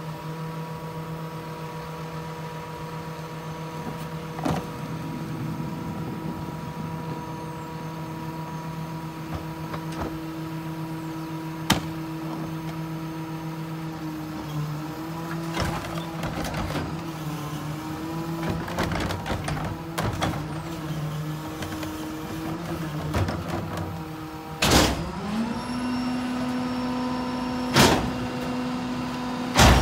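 Ez-Pack Apollo rear loader garbage truck running steadily at idle, with sharp knocks of trash bags and a wheeled cart hitting the hopper. About 25 seconds in, after a loud bang, the engine speeds up and holds a higher pitch as the cart tipper is worked, with more bangs of the cart being dumped near the end.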